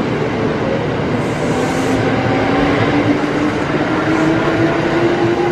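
Red-and-cream Kintetsu electric train moving alongside the platform: steady rumble of wheels on the rails, with a motor whine that rises gradually in pitch as the train picks up speed.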